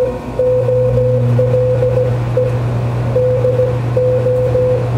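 A Morse code (CW) signal received on a Ten-Tec Scout 555 transceiver through its narrow filter. It is a single beat note keyed on and off in dots and dashes, over a steady low hum.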